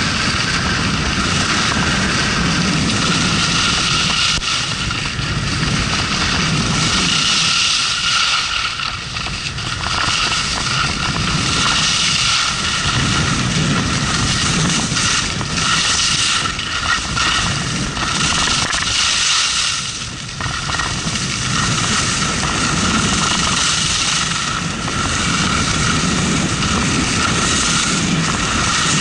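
Wind rushing over an action camera's microphone and skis scraping across packed snow during a fast descent, the rumble swelling and easing every few seconds.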